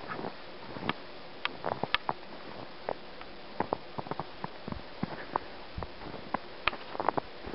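Irregular crunches and clicks of footsteps in snow, over a steady hiss.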